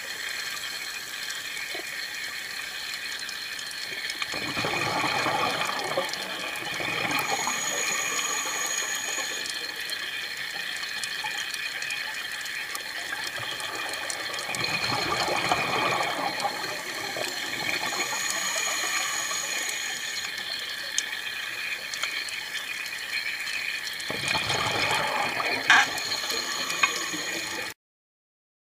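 Underwater recording on a scuba dive: a steady hiss with three surges of bubbling about ten seconds apart, the diver's exhaled bubbles from the regulator. The sound cuts off suddenly near the end.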